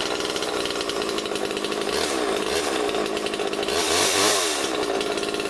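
Two-stroke gas chainsaw running, revved up and back down around two seconds in and again, loudest, around four seconds in. It runs like new.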